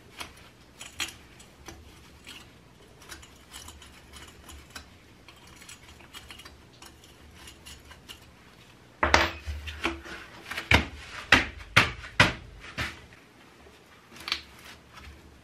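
Metal clinks and knocks from working at the bolts of a steel brake disc on a pit bike's spoked wheel hub: faint scattered clicks at first, then a run of about eight sharp clinks starting some nine seconds in, and two more near the end.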